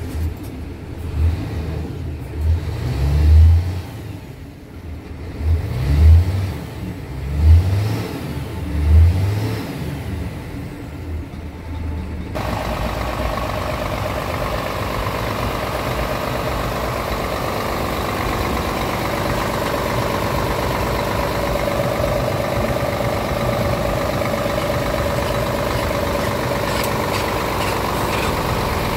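Scania R450 tractor unit's 13-litre inline-six diesel engine, heard from inside the cab being revved in several short throttle blips. About twelve seconds in it is heard close up at the open engine bay, idling steadily with a steady whine over it.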